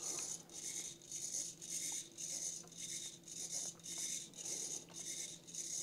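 Small hobby servo in wigwag mode, whirring in short bursts as it swings a piano-wire arm back and forth, about two strokes a second.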